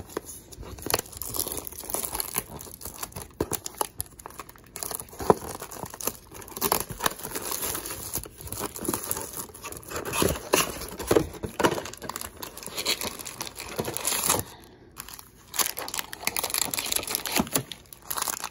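Plastic shrink wrap crinkling and tearing as it is peeled off a cardboard trading-card box, a long run of irregular crackles with a short lull about fifteen seconds in. Near the end the foil card packs rustle as they are taken out and stacked.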